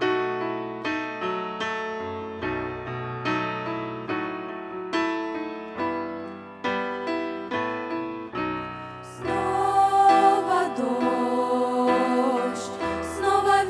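Grand piano playing a slow introduction, each note or chord struck and left to fade. About nine seconds in, a group of girls' voices comes in singing over the piano, louder than the piano alone.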